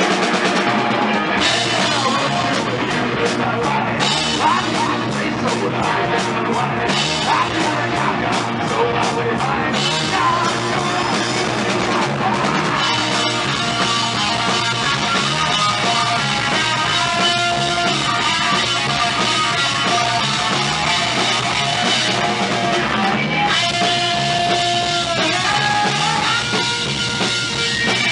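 Live rock band playing loud: drum kit, bass guitar and electric guitar together. Fast, steady cymbal strokes drive the first part, and later held guitar notes bend in pitch over the drums.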